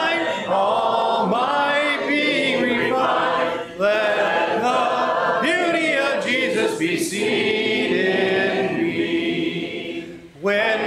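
Church congregation singing a hymn a cappella in four-part harmony. The singing breaks off briefly near the end, between verses, then starts again.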